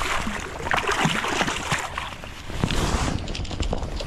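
A hooked chum salmon thrashing and splashing in shallow water at the bank, in irregular bursts of splashes, the heaviest about a second in and again near the end.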